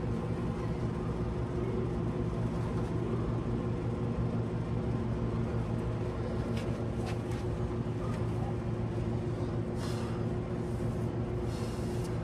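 Steady mechanical hum with a few brief, faint rustles.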